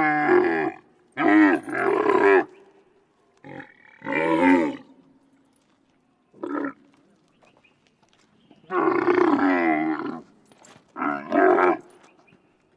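Camels calling: a series of about eight pitched, wavering bellows of differing length, some brief and one over a second long, with short pauses between them.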